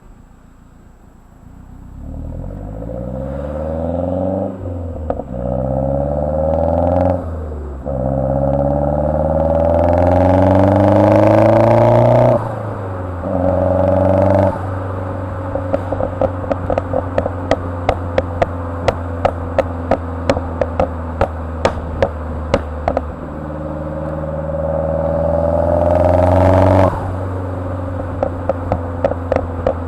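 2010 Mazdaspeed3's turbocharged 2.3-litre four-cylinder pulling through an aftermarket turbo-back exhaust. The revs rise, drop briefly at each gear change and rise again, then, once off the throttle, come rapid strings of sharp pops and crackles, which the tune is set to make. A second pull follows, then another run of crackles near the end.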